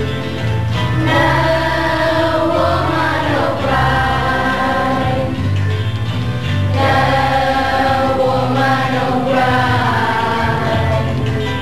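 A class of schoolchildren singing a song together as a choir, in phrases of about three seconds, over steady low accompanying notes.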